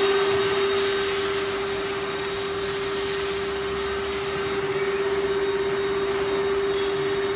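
A 350 hot-melt glue wall-panel wrapping machine running: a steady mechanical drone with one held tone over an even rushing noise. The upper hiss eases slightly about two-thirds of the way through.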